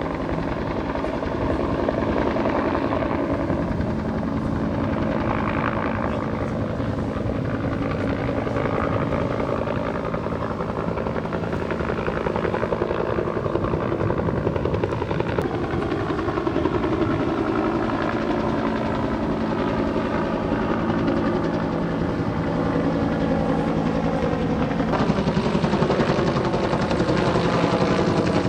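Helicopter hovering or circling overhead: a steady rotor chop with an engine whine. Its pitch shifts about halfway through and again near the end.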